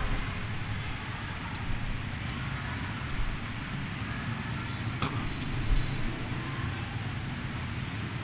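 Church room tone: a steady low hum with faint background noise, broken by a handful of sharp, light clicks and clinks spread through it.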